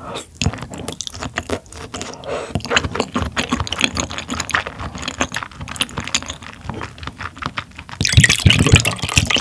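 Liquid being poured into a glass, the pour loudest and densest in the last second or so, after a run of small wet clicks and taps.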